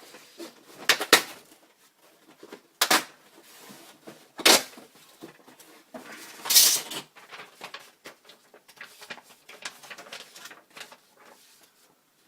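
A parcel being opened by hand: several sharp rips and snaps of packaging, a longer tear about six and a half seconds in, then lighter crinkling and rustling of the packaging.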